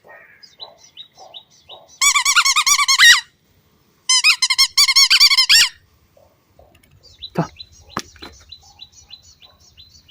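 Rubber squeaky dog toy squeezed by hand, giving two long squeaking bursts, about two seconds in and about four seconds in, each lasting over a second. Faint short chirps and two sharp knocks follow near the end.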